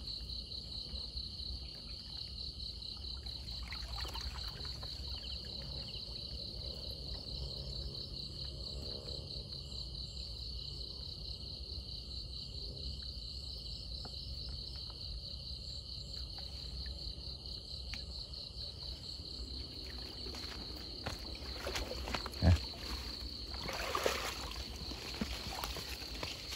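Crickets trilling in a steady, fast-pulsing chorus over a low rumble. About three-quarters of the way through, a single sharp thump is followed a moment later by a brief rustle.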